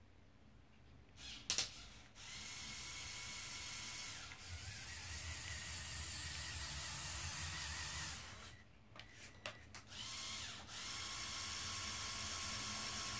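Electric motors and plastic gearing of a remote-controlled Lego Technic Arocs hooklift truck whirring with a steady whine as it drives in, after a few clicks about a second in. The whine stops briefly, with a few more clicks, then starts again near the end as the hooklift arm moves the raised container.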